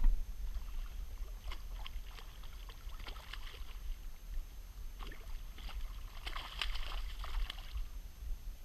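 Water splashing and sloshing in two spells as a hooked cod thrashes at the surface beside the boat, over a steady low rumble.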